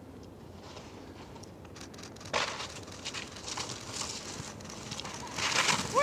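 Skis swishing through soft snow in a few turns: faint at first, then short hissing swells of spray about two, four and five and a half seconds in.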